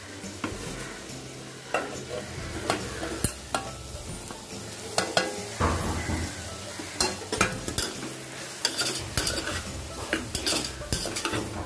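Soaked soya chunks going into a pressure cooker of sizzling onion-tomato masala and being stirred in with a metal ladle. Oil sizzles steadily under repeated scrapes and knocks of metal on the cooker's metal pot, which come thicker in the second half.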